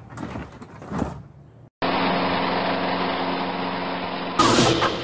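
An overhead garage door rattles shut with a couple of knocks, then a small push-mower engine runs steadily for about two and a half seconds, starting and stopping abruptly. A rooster crow starts near the end.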